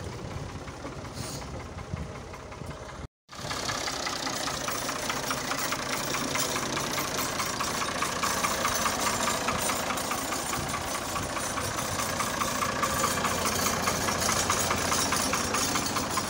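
Diesel farm tractor engine idling with a steady knocking beat. There is a brief dropout about three seconds in, after which the engine is louder and closer.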